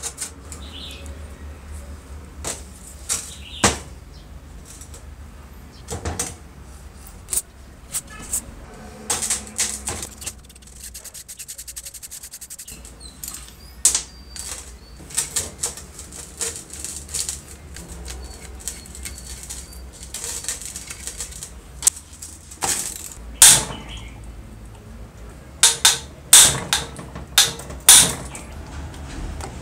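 Hand tools working on the metal parts of an old electric concrete vibrator: scattered sharp clinks and knocks, with a quick run of rapid, evenly spaced clicks about ten to twelve seconds in.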